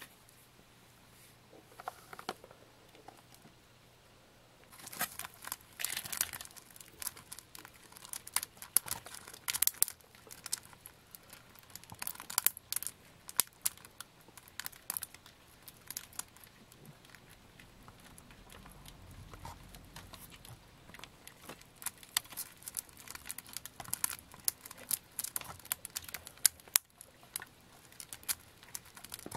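A Japanese giant stag beetle and a Tarandus stag beetle grappling on a bark-covered log: irregular scratching, crackling and clicking as their claws scrabble on the bark and their hard bodies knock together.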